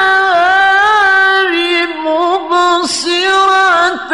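A male qari reciting the Quran in the melodic tilawah style. He chants high, ornamented notes that waver as they are held and step down in pitch, with a short break about three seconds in.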